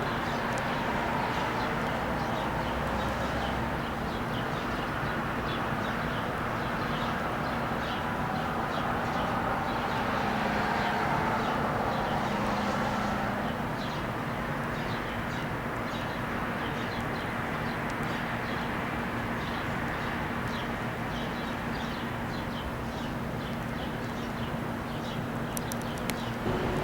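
Steady outdoor background noise with a faint low hum, and many short high chirps scattered through it, such as birds calling.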